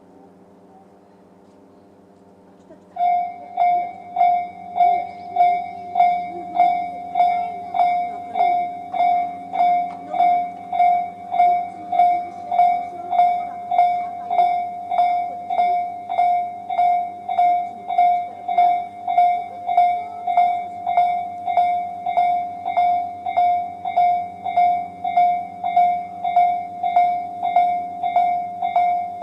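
Japanese level-crossing electronic warning bell of the slow-tempo Tobu 'C' type. It starts suddenly about three seconds in and repeats a ringing tone in slow, even strikes: the crossing alarm sounding for an approaching train.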